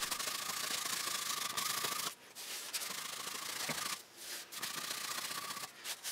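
Hand-pumped flocker tube being worked to puff flock fibers: repeated long hissing strokes of a second or two each, with brief breaks between them.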